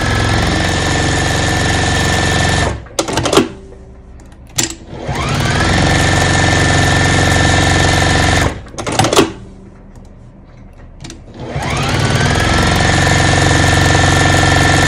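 Juki domestic sewing machine stitching quilting lines in three runs with short pauses between them. Each restart begins with a rising whine as the motor speeds up, then settles into a steady whirr; a few clicks sound in the pauses.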